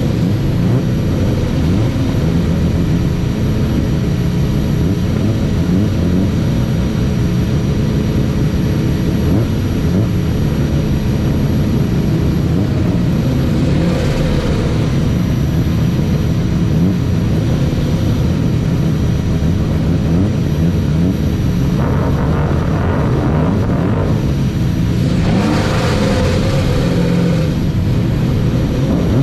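A Jaguar XJS racing car's V12 engine running hard on track, heard from a camera on the car, its revs rising and falling through the laps.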